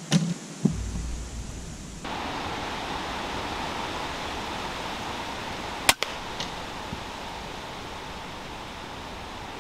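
A couple of sharp knocks in the first second as a grey squirrel, just hit by an air rifle pellet, thrashes off the feeder. About six seconds in comes a single sharp crack of a .22 PCP air rifle shot, over a faint steady hiss.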